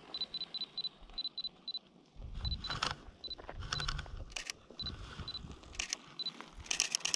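Handheld Canon camera beeping in short, high, evenly spaced pips as it focuses, with several short bursts of shutter clicks as frames are fired.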